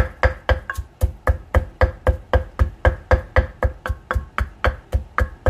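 Pestle pounding garlic and chillies in a mortar, about four strikes a second. Each strike is a dull thud with a short ring.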